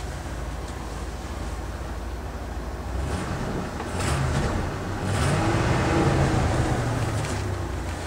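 Motorhome engine running at idle, then brought up in steps to a louder, faster run from about three seconds in, loudest around six seconds, and easing back toward idle near the end.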